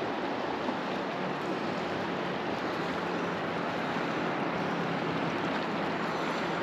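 River current flowing past the bank: a steady, even wash of moving water.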